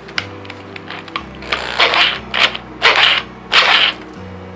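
Four short rasping strokes of a tool cutting into PVC pipe while the last hole is being worked, with small clicks between them, over background music.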